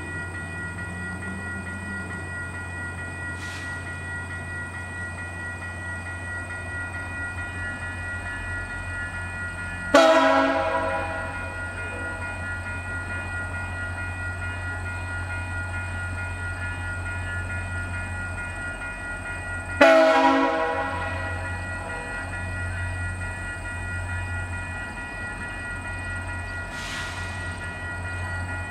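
VIA Rail F40PH-2 diesel locomotive idling with a steady low hum, then sounding its horn twice in short blasts about ten seconds apart, about a third and two-thirds of the way in.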